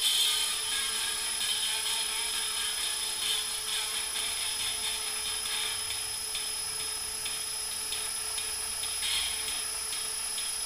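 Cordless drill running steadily with a high motor whine, turning a vinyl record, mixed with a scratchy hiss from the homemade paper-cone and sewing-needle pickup riding the record's groove.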